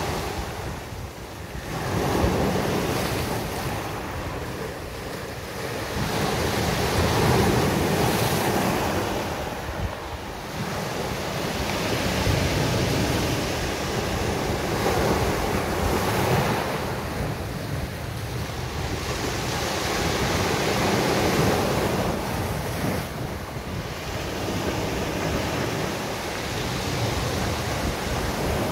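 Sea waves breaking and washing up a beach, the surf swelling and easing every four to five seconds.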